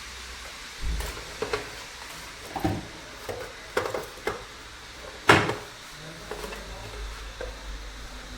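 Metal tools clicking and knocking on a diesel injector as it is taken apart on the bench, over a steady hiss. The clicks come in small clusters, with one sharp knock about five seconds in the loudest.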